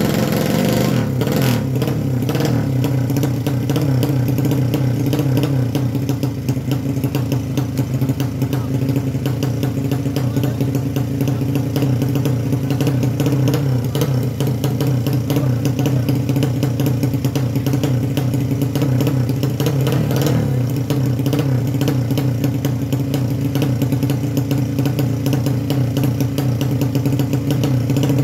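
Tuned drag-race motorcycle engine running steadily at a raised idle, held at the start line, its note settling a little lower about a second in.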